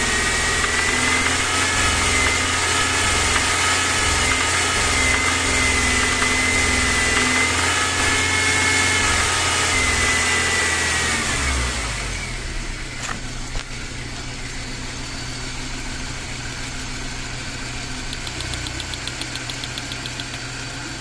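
BMW M43TU four-cylinder petrol engine held at raised revs, then dropping back to idle about twelve seconds in, with a light fast ticking near the end. The owner attributes the engine's knock, present only when cylinder 2 is firing, to worn connecting-rod bearings on that cylinder.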